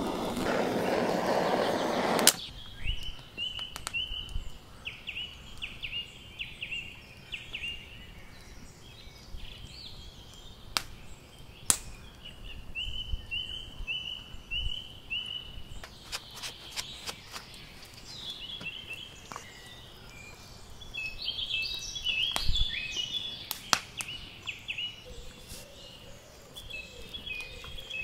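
Songbirds chirping and singing in repeated short high phrases, with a few sharp clicks in between. A loud steady rushing noise runs for the first two seconds, then cuts off suddenly.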